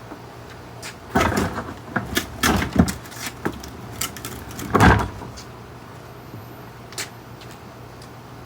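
A run of irregular knocks, bumps and scrapes as things are moved about by hand, with the loudest thump about five seconds in and a single sharp click a couple of seconds later.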